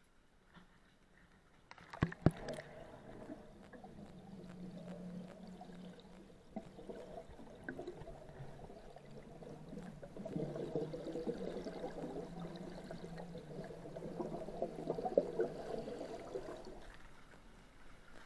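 Water pouring and gurgling into a rotary screw trap's live well, a continuous rush that swells about halfway through, with a couple of sharp knocks about two seconds in.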